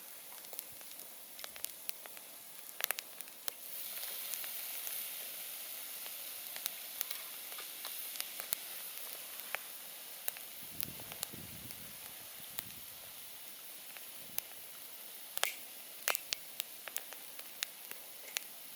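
Wood campfire burning, with a steady hiss and frequent sharp crackles and pops of the burning wood. The hiss swells louder about four seconds in.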